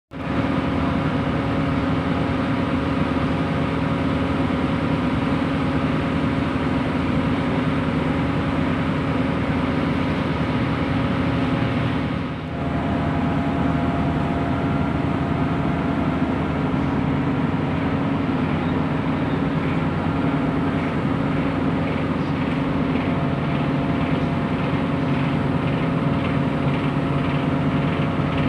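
Steady drone of ship's machinery running, an engine sound with several held tones that does not change. A faint regular ticking comes in over the second half.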